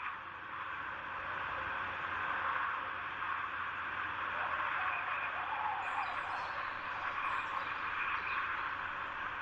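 Steady rushing wind-like ambience with faint bird chirps, a few of them high-pitched about six to seven seconds in.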